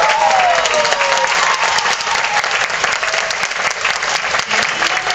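Audience applauding steadily at the end of a gymnastics floor routine, with a few cheering voices in the first second or so.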